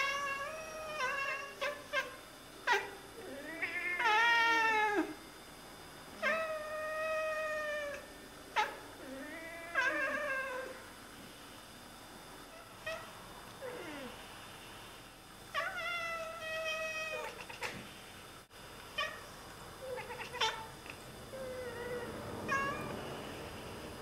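Oriental Siamese cats chattering and meowing at birds they are watching: a string of short chirping meows and bending calls, with sharp clicks in between and a quieter pause about halfway through. This is the excited prey-watching chatter cats make at birds they cannot reach.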